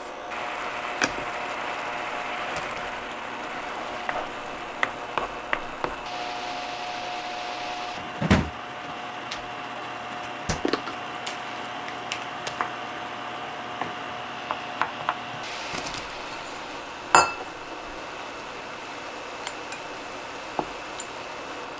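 A pan of broth simmering on a Samsung induction cooktop, with a steady hiss of bubbling and a faint high whine from the hob. A wooden spoon, chopsticks and containers tap and clink against the pan throughout. A louder knock comes about eight seconds in and a sharp clatter a little after the middle.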